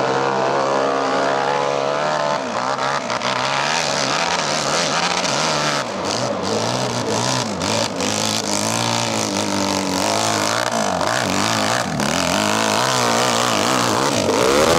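Hill-climb dirt bike with a paddle rear tyre revving hard on full throttle up a steep slope, its engine pitch rising and falling repeatedly as the revs change.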